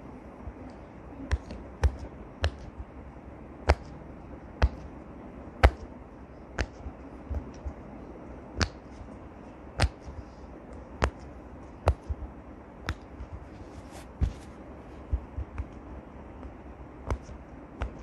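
Silicone pop-it fidget toy being pressed bubble by bubble: a string of sharp pops at an uneven pace, about one a second.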